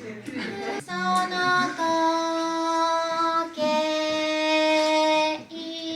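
A high voice singing long, steady held notes, three or four in a row with short breaks between them.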